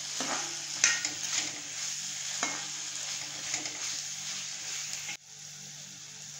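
Chopped vegetables sizzling in hot oil in a kadai while a spatula stirs them, scraping and knocking against the pan now and then. About five seconds in the stirring stops and only a quieter, even sizzle remains.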